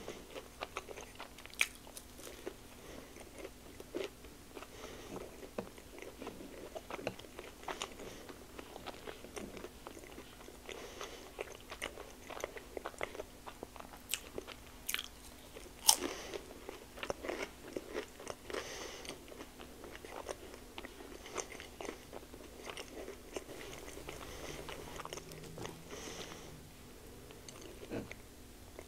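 Close-miked eating of crispy cheesy chicken taquitos dipped in queso: irregular crunchy bites and chewing, with a few much louder sharp crunches about halfway through.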